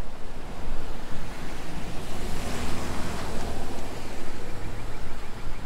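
A vehicle passing close by on the street, its tyre and engine noise swelling to a peak about halfway through and then fading, over a steady wind rumble on the microphone.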